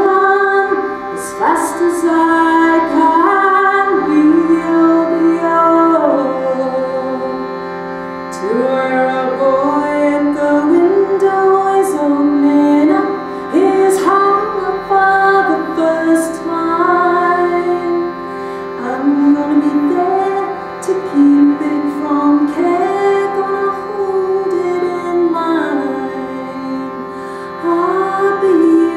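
A woman singing a slow melody of long held and sliding notes over the steady reed drone of a hand-pumped shruti box.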